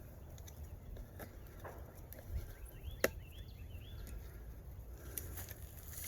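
Scattered light clicks and knocks from handling an opened bee package, over a steady low rumble, with a bird chirping a few quick notes near the middle.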